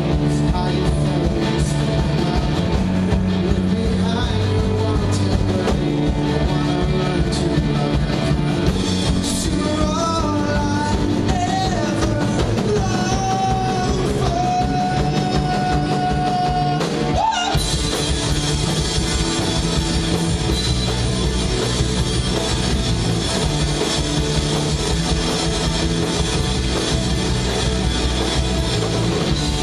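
Live rock band playing, with drum kit, guitar and singing. A long held note fades out about 17 seconds in, the music breaks off for an instant, then the band comes back in louder and brighter with crashing cymbals.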